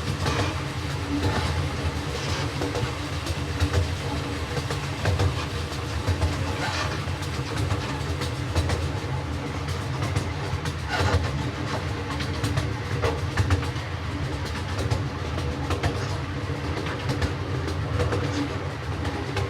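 Ride aboard a miniature railroad train: a steady rolling rumble with many short clicks as the wheels pass over rail joints.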